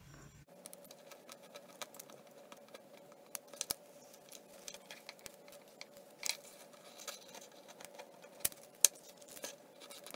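Craft knife scraping label and glue off a clear plastic soda-bottle strip: faint, irregular scratches and small clicks.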